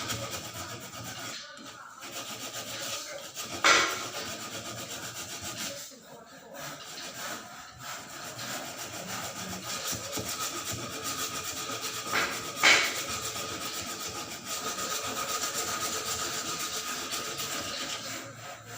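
Hand-sanding with sandpaper: a steady scratchy rubbing of quick back-and-forth strokes, stopping briefly now and then. Two sharp knocks, about four seconds in and near the two-thirds mark, are the loudest sounds.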